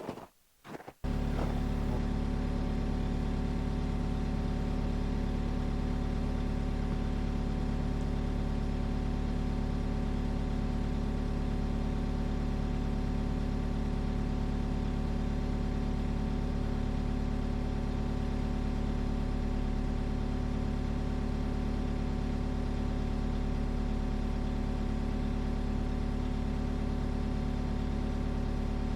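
An engine running steadily at a constant speed, cutting in abruptly about a second in.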